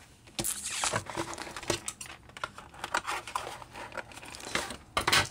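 Cardboard and plastic toy packaging rustling and crinkling under the hands while scissors cut the plastic ties holding a doll to its cardboard backing, in irregular bursts with a sharper crack about five seconds in.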